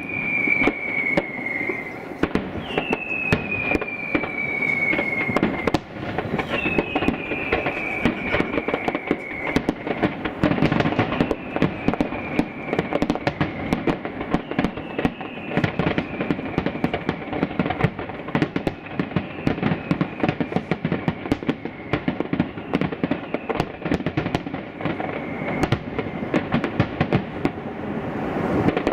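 Aerial fireworks display: a dense run of bangs and crackling from bursting shells. Over it come repeated falling whistles that grow fainter, each lasting two or three seconds.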